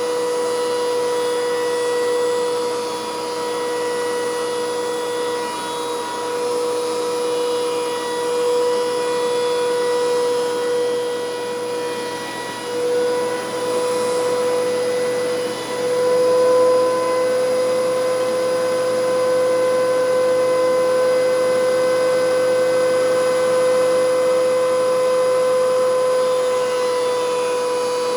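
DeWalt DW735 thickness planer running with a steady high whine, its pitch dipping briefly a few times.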